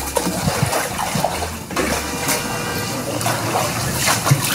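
People wading through floodwater, the water sloshing and splashing with each step.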